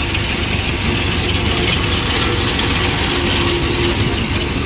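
Potato harvesting machine working, its tractor engine running steadily: a constant low rumble with a faint steady hum over it.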